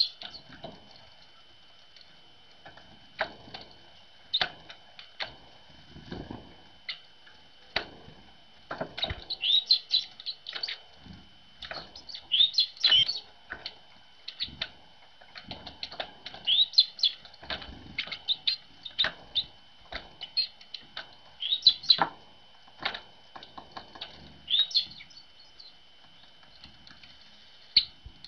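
Great tits coming and going at a feeder: many short wing flutters and taps, with clusters of brief high chirping calls every few seconds from about a third of the way in.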